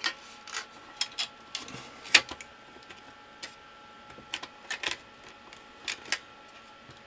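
Irregular light clicks and taps of small tools and parts being handled on a workbench, the sharpest about two seconds in.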